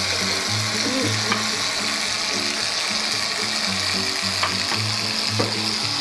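Upside-down aerosol can of whipped cream spraying out its contents with a steady hiss, under background music with a stepping bass line.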